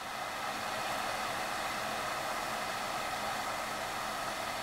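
Steady hiss of 2 cups of water in a narrow aluminium cook pot just short of the boil (209°F), heated from below by a small alcohol wick stove. The hiss swells in over the first second and then holds even.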